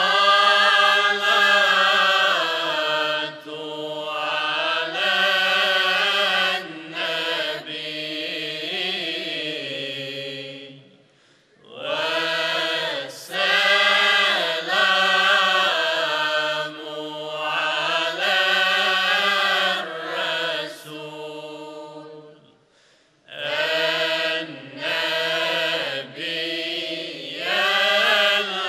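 Choir of men's and women's voices singing together in long held phrases, breaking off briefly twice for breath before starting again.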